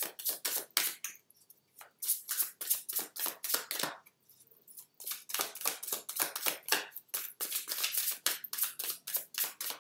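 A deck of oracle cards shuffled by hand: rapid flicking clicks as the cards slide and slap together, in three runs broken by short pauses about a second and a half in and about four seconds in. She is shuffling to draw the next card.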